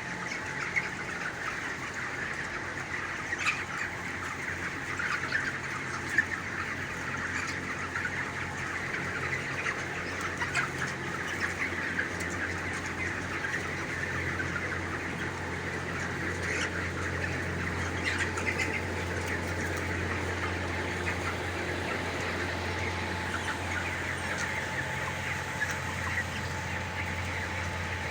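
A flock of broiler chicks cheeping and chirping all at once in a dense, continuous chatter, with a low steady hum growing stronger from about halfway through.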